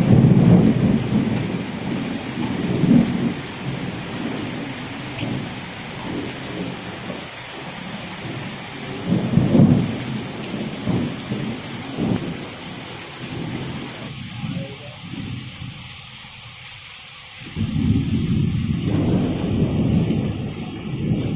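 Steady heavy rain hiss with rolling thunder rumbles, swelling near the start and again about ten seconds in. The rumble drops away for a few seconds, leaving only the rain, then returns near the end.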